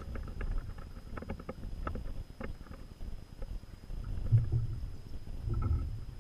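Wind buffeting the microphone in low rumbling gusts, strongest about four and five and a half seconds in, with scattered light clicks and knocks in the first half.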